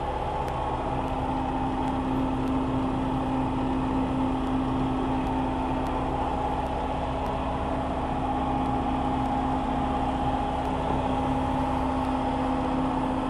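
Combine harvester running steadily, a constant machine hum with a steady drone and a higher whine held throughout.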